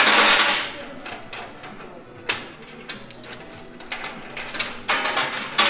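Coin pusher arcade machine: a loud clatter of coins at the start and again near the end, with scattered metallic clicks and the pusher mechanism running quietly in between.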